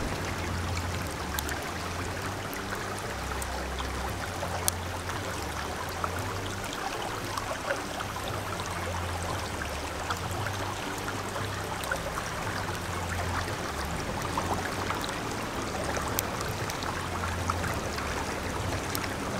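Steady rushing of a flowing river, with scattered faint crackles from the wood fire burning under the pan.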